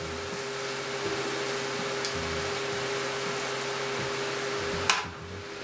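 Shrimp sautéing in a frying pan over a gas burner: a steady sizzle with a faint hum under it, cut short by a click about five seconds in.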